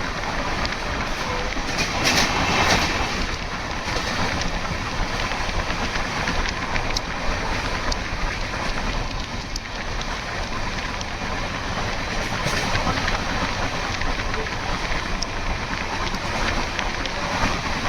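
Passenger train running along the track: a steady rumbling rush with scattered clicks of wheels passing over rail joints, swelling louder about two seconds in.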